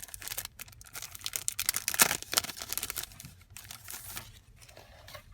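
Crinkling and irregular clicking of a pack of sticky notes and its wrapping being handled and opened, loudest about two seconds in and dying down near the end.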